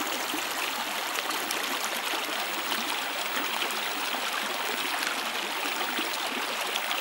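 Shallow stream running: a steady, even flow of water.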